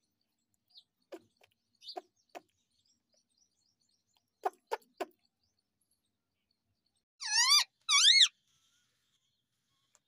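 Indian ringneck parakeet making a few soft short clicks, then two loud squawks close together, each sweeping up and down in pitch.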